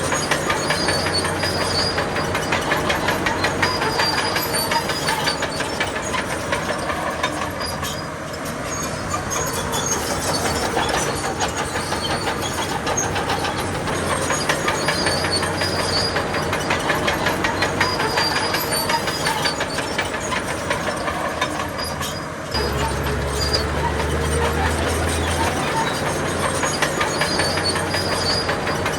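Heavy diesel earthmoving machinery working, most likely a bulldozer: a steady engine rumble under a dense, rapid metallic clatter like crawler tracks. The engine note eases about eight seconds in and picks up suddenly about 22 seconds in.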